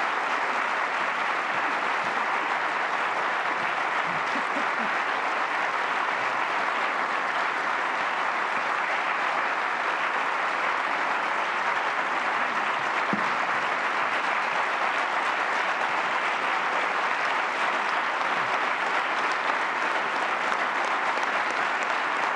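Large audience applauding in a hall, steady and unbroken throughout.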